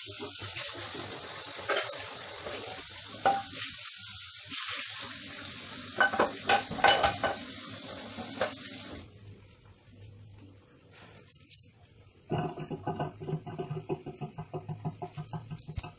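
Tap water running into a kitchen sink while dishes and cutlery are washed, with sharp clinks of crockery, loudest around six to seven seconds in. The running water stops about nine seconds in, and about three seconds later a quick, evenly pulsing pitched sound begins.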